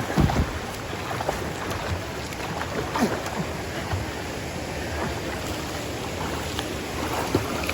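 Stream water rushing steadily over rocks, with a few brief splashes.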